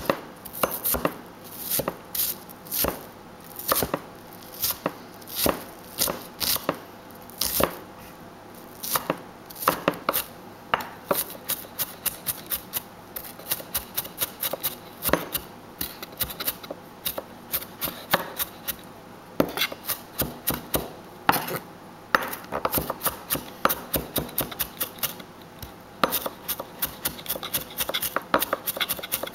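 Cleaver mincing shallots on a thick round wooden cutting board: quick knocks of the blade on the wood, several a second, in uneven runs that speed up at times.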